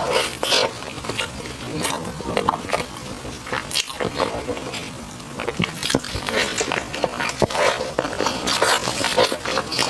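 Close-miked chewing of sticky glutinous-rice food, with irregular wet smacks and clicks of the mouth and teeth.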